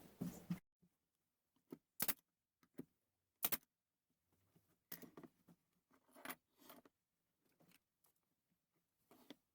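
Scattered knocks and clinks of wooden shelf pieces and tools being handled during assembly, the two sharpest about two and three and a half seconds in, with a few softer ones after.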